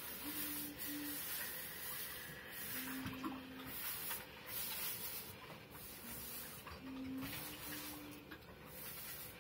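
Steam iron hissing as it is pressed onto a damp pressing cloth, the hiss coming in stretches of a second or two with short breaks between.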